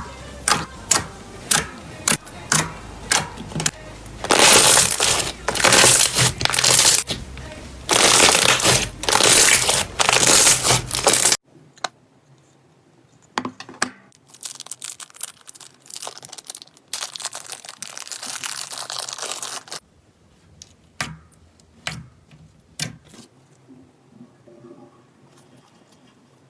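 Slime being pressed and stretched by hand: a run of sharp pops about two a second, then long stretches of crackling. Near the middle the sound drops off suddenly, and quieter scattered pops and one more crackling stretch follow.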